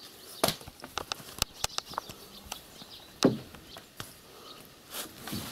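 Wooden poles on a loaded cart knocking and clicking as they are handled. There is a run of small sharp clicks, with louder knocks about half a second in, a little after three seconds and near the end.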